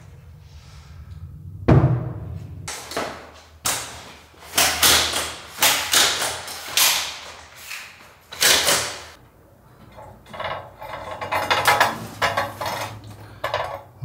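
A ceiling hatch being pushed open with a pole and a telescopic ladder being set up and climbed: a heavy knock about two seconds in, then a run of sharp knocks and clatters.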